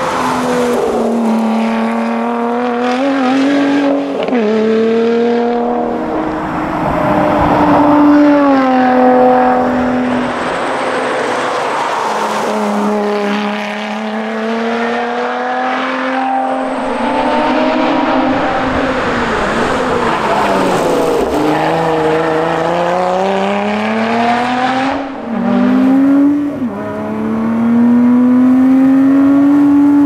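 Lotus Exige 410 Sport's supercharged V6 revving hard through the gears at racing speed: the engine pitch climbs through each gear and drops sharply at each upshift, with falling sweeps as the car passes by and slows for corners.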